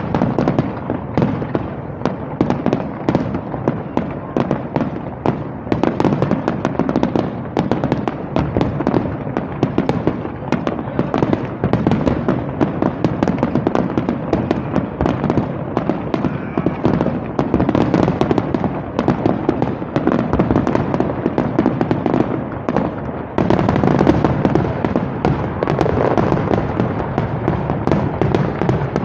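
Aerial fireworks display going off in a dense, rapid, unbroken run of bangs, getting louder for the last few seconds.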